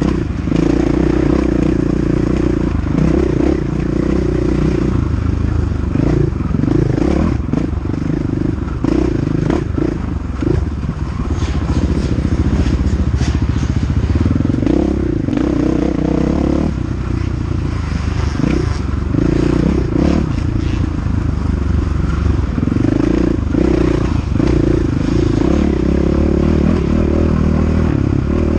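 KTM 500 EXC single-cylinder four-stroke dirt bike engine racing off-road, its revs rising and falling over and over as the throttle is worked. Scattered knocks and rattles from the bike run through it.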